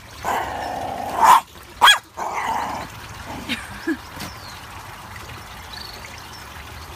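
Jackchipoo, a small Jack Russell–Chihuahua–Poodle cross, growling and barking: a rough, drawn-out grumble with two sharp barks in the first two seconds, then falling quiet after about three seconds.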